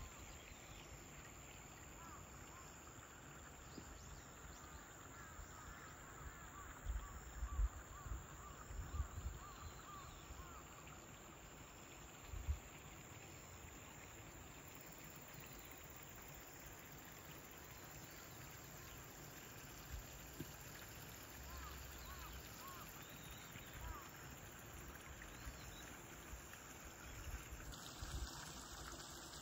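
Quiet outdoor ambience: a steady faint rush with scattered faint high chirps, and a few low bumps on the microphone about a quarter of the way in.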